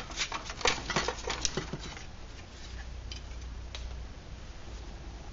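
Light metal clinks and knocks of small camping cookware and stove parts being handled on a workbench: a quick flurry of clatter in the first two seconds, then a few scattered clicks, over a low steady hum.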